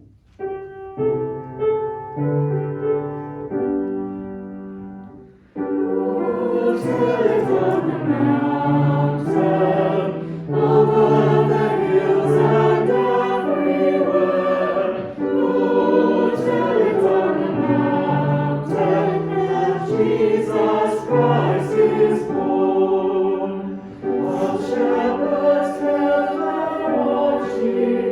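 Choir singing a hymn with accompaniment, entering after a short instrumental introduction of about five seconds.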